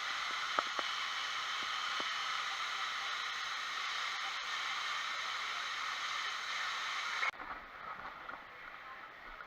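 Steady rush of running water, which cuts off suddenly about seven seconds in, giving way to a quieter background with a few faint clicks.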